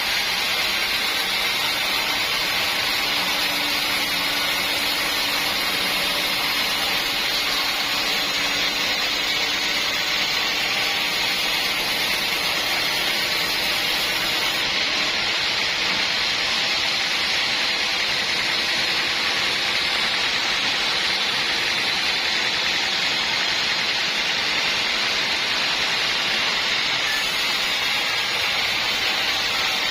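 Sawmill running steadily: a continuous, even, hissing machine noise with a faint low hum that does not change.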